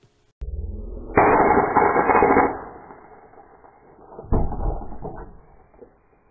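Capacitive discharge spot welder arcing and blowing out on an 18650 cell when the welding leads are not held down firmly, blasting a hole in the cell. There is a loud rasping blast lasting over a second, then a sharp bang about three seconds later.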